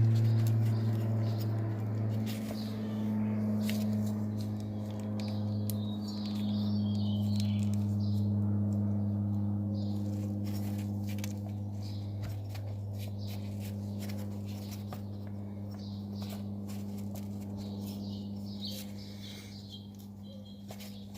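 A steady low hum that slowly fades, with scattered light clicks and taps of metal brake pads and hardware being handled and greased.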